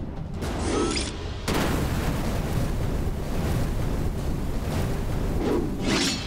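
Cartoon special-attack sound effects for a tornado-like spinning-top move: a short whoosh, then, about a second and a half in, a sudden loud, dense rushing noise begins and carries on, with another rising whoosh near the end.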